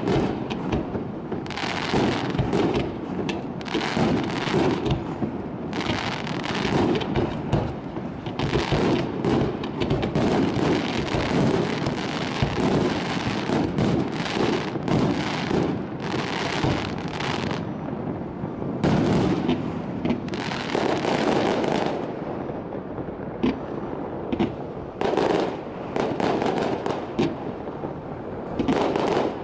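Fireworks display: a rapid, overlapping run of bangs and crackles from shells bursting and rising comets, with a short lull about three quarters of the way through.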